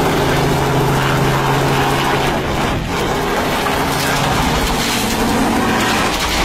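Robinson helicopter's engine and main rotor running loud and steady as it tries to lift off. About four seconds in, as the helicopter tips over onto its side in a crash, the steady tone breaks up into rough, uneven noise.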